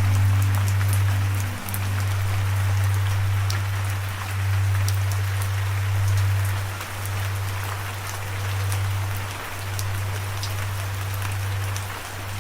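Steady rain falling, with scattered sharp drop ticks, over a low droning hum that swells and breaks about every two to three seconds.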